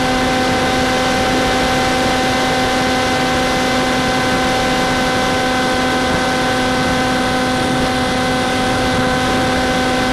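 Electric motor and propeller of an Easy Star RC plane in flight, heard through its onboard camera: a steady hum held at one pitch over a hiss of air noise.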